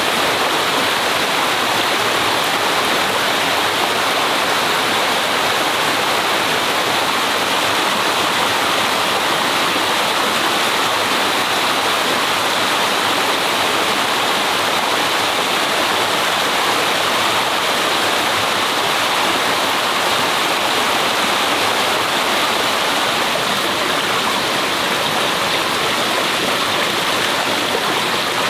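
Stream water rushing, a loud, even rush with no breaks.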